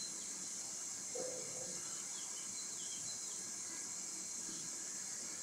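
Steady high hiss of a covered pan of chicken and potatoes frying and steaming on the stove, with faint bird chirps now and then and one brief low sound about a second in.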